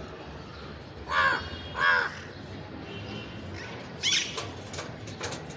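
Ringneck parrot giving harsh squawking calls: two about a second in, half a second apart, and a third shorter one near four seconds in.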